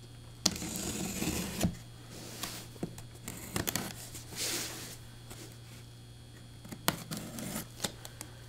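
Packing tape on a cardboard shipping box being slit with a pointed blade: a sharp click about half a second in, then a scraping rip lasting about a second. Scattered clicks and a short rustling scrape follow as the cardboard flaps are worked loose, with more clicks near the end.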